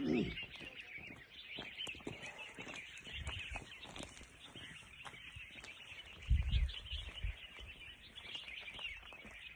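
Wild birds chirping continuously, many small calls overlapping. A few low thumps come about two-thirds of the way through.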